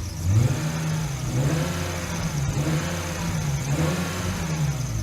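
BMW E36 328i's straight-six engine running unevenly: its revs rise about half a second in, waver up and down, and drop back near the end. It is a lumpy idle where it should be silky smooth, which the owner is tracing to vacuum leaks.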